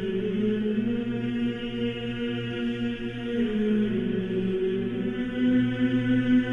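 Orthodox church chant sung by low male voices: slow, sustained notes over a steady held drone note.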